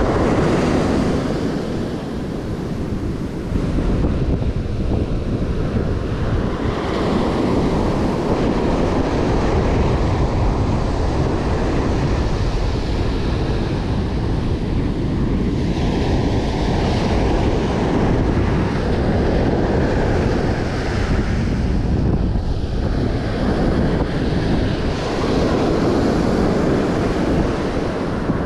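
Ocean surf breaking and washing up a sandy beach, swelling and easing every few seconds, with wind buffeting the microphone.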